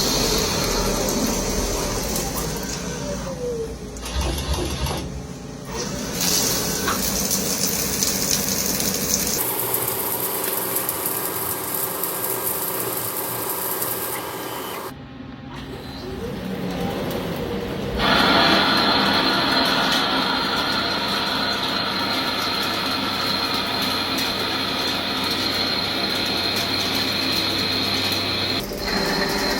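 Metal lathe running and machining, heard in several segments whose sound changes abruptly about 9, 15 and 18 seconds in, with a steady high whine through much of the last part.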